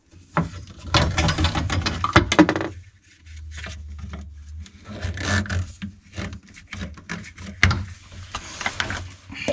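Plastic condensate pipe and fittings being handled and pushed into place against a wall: rubbing and rustling with a string of clicks and knocks, busiest in the first two and a half seconds, and a brief low hum in the middle.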